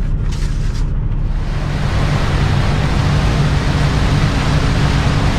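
Heavy rain hissing on a moving semi-truck over the steady low drone of its engine; the rain hiss swells about a second in and holds.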